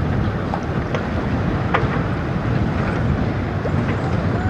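Steady wind rumbling on the microphone over open water, with a few faint sharp ticks scattered through it.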